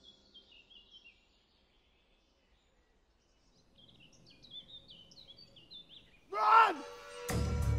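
Songbirds chirping in short repeated phrases, with a near-silent lull between them. Near the end a loud shout of "Run!" comes, and then loud music with a heavy low end cuts in.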